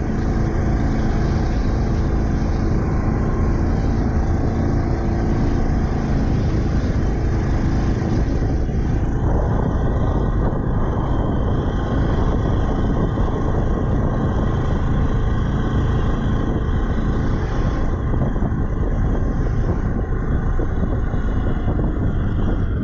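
The 4.8-litre LS V8 of a jet boat with a Berkley jet drive, running steadily under way, with a slight change in its note about nine seconds in. The engine is misfiring: the owner thinks one cylinder bank is not firing at all.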